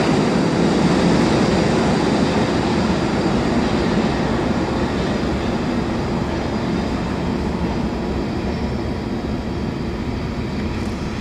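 A New York City Subway (6) train pulling away into the tunnel, its steady rumble slowly fading as it recedes.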